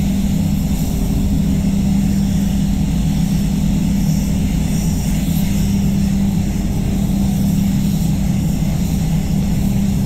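Steady drone of a spray booth's air system with a strong low hum, under the hiss of a compressed-air paint spray gun laying down a coat of metallic red basecoat.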